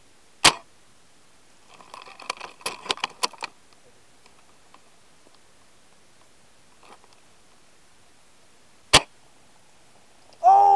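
Spring-powered VSR-10 bolt-action airsoft rifle firing two single sharp shots, one about half a second in and one near the end, with a quick run of metallic clicks and rattles between them as the bolt is cycled. A loud call cuts in right at the very end.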